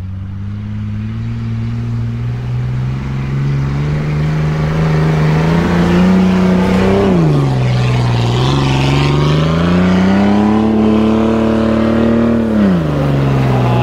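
Lifted Jeep Cherokee XJ's engine revving under load on a snowy trail climb, with its tyres spinning in snow. The revs climb, drop suddenly about halfway through, climb again and fall off near the end.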